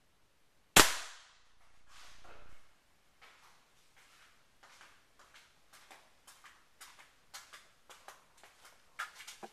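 A single shot from a Daisy 880S .177 pellet rifle about a second in: a sharp crack that dies away quickly. It is followed by a rising rushing sound lasting about a second, then a run of light clicks and handling noises that come quicker and a little louder near the end.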